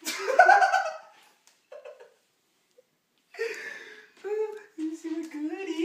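A person's voice: a loud vocal outburst just after the start, then, after a pause of about two seconds, high-pitched wavering vocal sounds without clear words.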